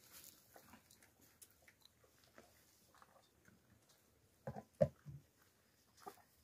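Faint sounds of people eating a meal: soft chewing and small clicks of cups and dishes, with a few louder short sounds about four and a half to five seconds in.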